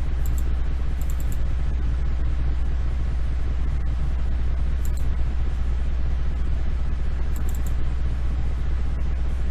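Steady low hum and rumble of the recording's background noise, with a few faint, short clicks here and there.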